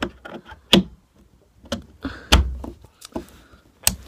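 Handling noise while a phone charger is fitted: a few sharp plastic clicks and knocks, with a dull thump a little past halfway.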